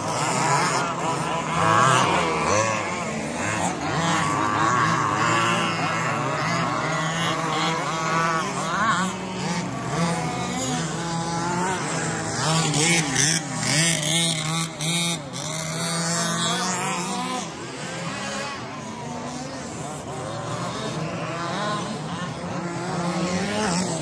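Several radio-controlled 2WD Baja buggies racing, their small petrol engines revving up and down over one another as they accelerate and brake around the track.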